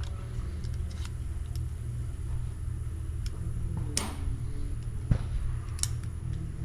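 Steady low rumble of a car in motion, as heard inside the cabin, with a few light clicks and knocks.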